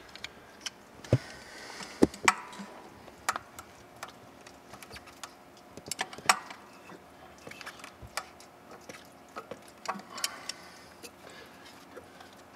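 Hand tools clicking and clinking on metal engine parts in a series of irregular sharp clicks and knocks as bolts around the water pump and idler pulley are worked loose, the loudest about one, two and six seconds in.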